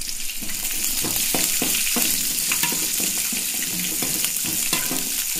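Shallots, garlic, ginger and fennel seeds sizzling in oil in a metal pan, with a steady high hiss. A metal spoon stirs them, scraping and knocking against the pan many times.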